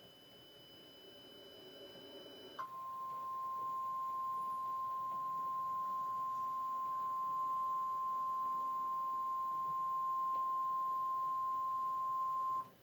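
Emergency alert warning tone for a tornado warning. It is a single steady high tone, the 1050-hertz warning alarm of NOAA Weather Radio. It starts sharply about two and a half seconds in, holds for about ten seconds, then cuts off abruptly. A faint high whine runs beneath.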